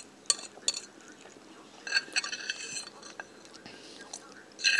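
A fork scraping and clinking against a plate as the last rice is gathered up. There are a couple of sharp clicks at the start, then a longer run of scraping about two seconds in and another near the end, with chewing in between.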